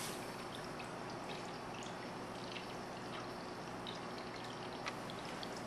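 Canned chili being poured from a tin can into a pot of browned ground beef: a soft, steady wet noise with small crackles, and one light tap about five seconds in.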